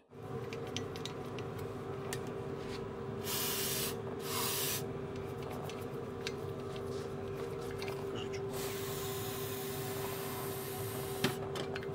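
Aerosol spray can with a red extension straw hissing as it sprays cleaner onto an outboard cylinder head: two short bursts about three and four seconds in, then a longer spray of about two and a half seconds near the end. A steady hum runs underneath.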